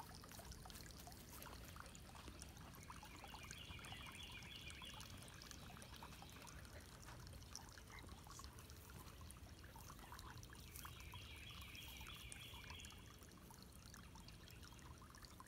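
Faint, steady trickle of running water, the horse's water. Twice, a high, rapid trill lasts about three seconds.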